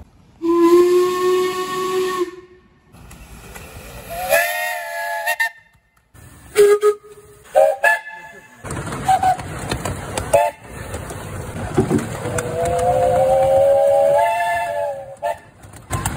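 Miniature steam locomotive whistles sounding one after another: a long steady blast, a wavering two-note chime, several short toots, then a long whistle that climbs a little in pitch before cutting off, with steam hissing between blasts.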